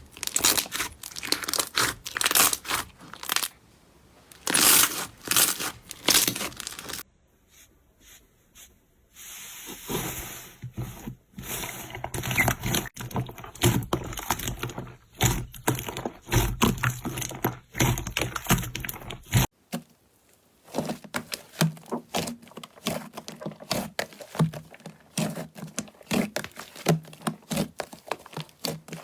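Slime being squeezed, stretched and pressed by hand: crackling, tearing and popping sounds in a run of short clips that change abruptly, the last part quieter with rapid small clicks.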